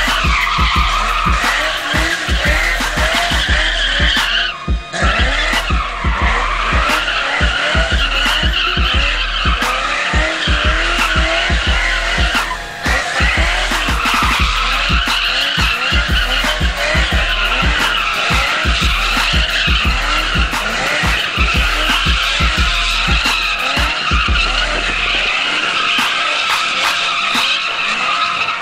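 Ford Maverick doing donuts in a burnout: the spinning rear tires squeal without a break while the engine revs up and down over and over.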